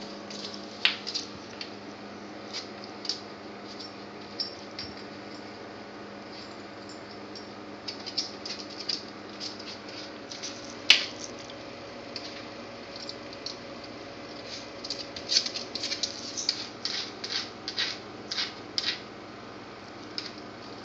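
Dog's metal collar tags clinking and jingling in scattered light clicks as it moves and noses about, with one sharper click about halfway and a busier run of jingling near the end. A steady faint hum lies underneath.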